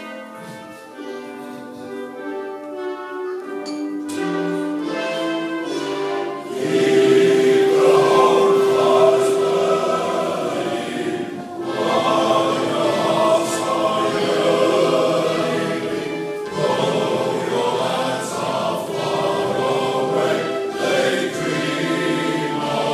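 Male voice choir singing, opening softly with long held notes and growing fuller and louder after about six seconds.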